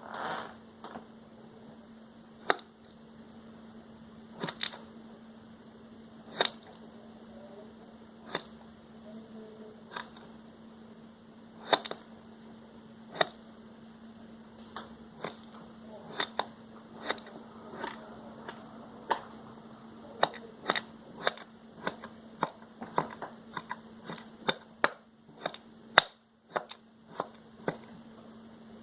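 Sharp clicks and taps as a knife cuts through kinetic sand. They come about every two seconds at first and more often in the second half, over a faint steady hum.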